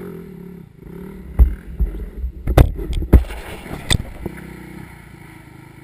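Off-road vehicle engine running on a rocky hill climb, with a run of about five heavy knocks and thumps over a couple of seconds that are louder than the engine.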